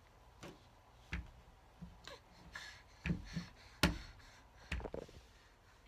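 Irregular knocks and thumps, a dozen or so scattered through a few seconds, as a baby bangs and pushes a pink plastic toy and paws at a wooden door. The loudest is a sharp knock a little before the four-second mark.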